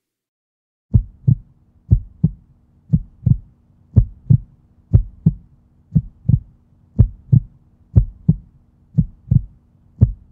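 Heartbeat sound effect: paired low thumps about a third of a second apart, repeating about once a second, starting about a second in over a faint steady hum.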